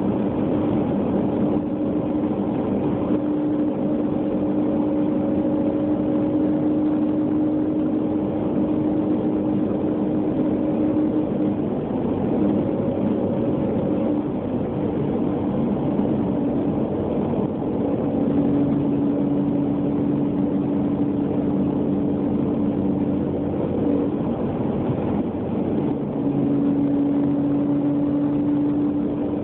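2000 Jeep Grand Cherokee running with a steady whine over its rumble; the whine fades out twice for a few seconds and comes back. This whine is the odd noise the owner is showing.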